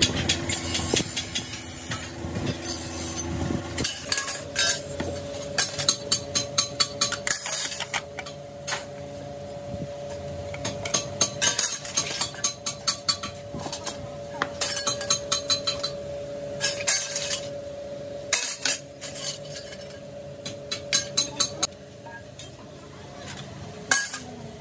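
Light metal clinking in several quick rattling runs of sharp clicks, from steel trowel blades and a paint tin being handled while the blades are brushed with paint, over a faint steady hum. For the first few seconds, an electric bench grinder's motor hums steadily.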